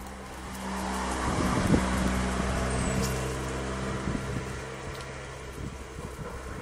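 A motor vehicle's engine passing by, a steady low hum that swells about a second in and fades over the last seconds.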